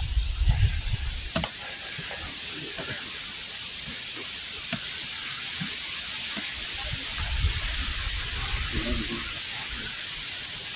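Steady rain falling: an even hiss, with a few low thumps near the start and again about two-thirds of the way through.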